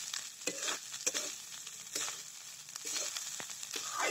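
Metal spatula stirring and scraping fried rice in a metal kadhai, with repeated scrapes over the steady sizzle of the rice frying in oil.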